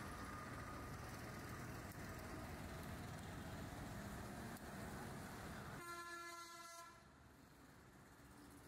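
Steady rushing background noise, broken a little past halfway by a horn sounding one steady note for about a second; after it the noise is quieter.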